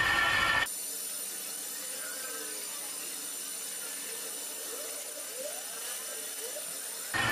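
Metal lathe running, turning a steel shaft, with a loud steady machine whine. About half a second in, the sound drops suddenly to a much quieter, thinner steady whir with a high thin whine, and the loud running sound comes back suddenly near the end.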